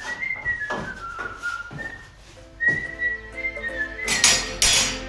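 A tune whistled in clear notes, with a few sharp knocks alongside. Background music comes in about halfway, and a short loud rush of noise follows about four seconds in.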